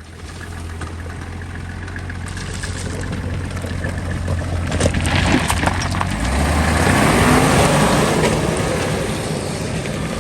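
Off-road 4x4's engine running under way. It grows louder and its pitch shifts about six seconds in, and a rushing noise builds with it, loudest about three-quarters of the way through.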